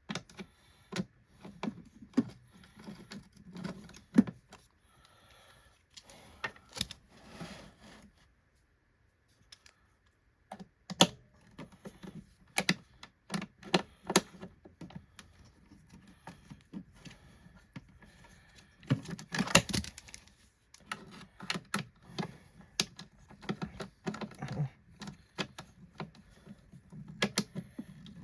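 Irregular clicks, knocks and rattles of hard plastic vacuum-cleaner parts being handled and taken apart, with a pause of about two seconds a third of the way in and a louder clattering spell around the middle.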